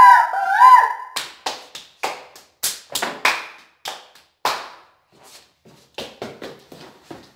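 Two children's hands clapping and slapping together in a clapping-greeting routine: a string of sharp, irregular hand claps about two a second, getting softer in the second half. A loud, wavering high-pitched tone fills the first second.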